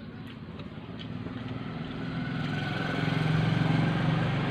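A vehicle engine running and getting steadily louder, as if approaching, until it is loudest near the end.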